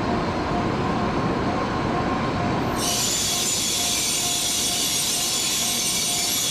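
Train running on rails: a steady rumble with a faint squealing tone, joined about three seconds in by a steady high hiss.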